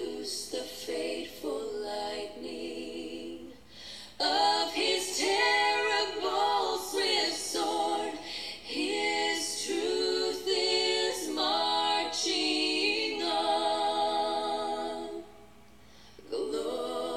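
A song sung by a woman with little or no instrumental backing: softer for the first few seconds, much louder from about four seconds in, with a short lull near the end before the voice returns.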